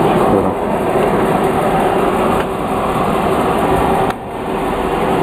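A small motor running steadily with a constant hum, dropping briefly in level about four seconds in.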